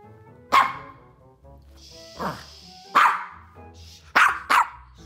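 Small Maltese dog barking: five short, sharp barks, the last two in quick succession near the end.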